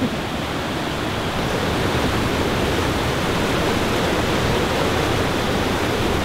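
Creek water rushing down a small rocky waterfall into a pool, a steady roar of whitewater.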